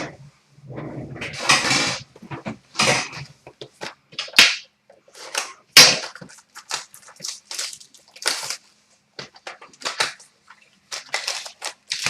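Packaging of a hockey card box and its packs being torn open and handled: irregular crinkles, rips and clicks.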